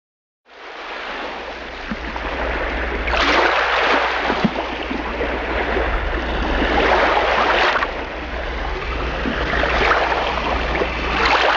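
Waves washing in, the rush swelling and easing about three times, over a steady low rumble.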